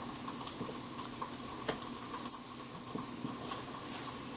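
Boiled pork being shredded with two pairs of metal tongs: soft, wet tearing of the meat with scattered light clicks of the tongs.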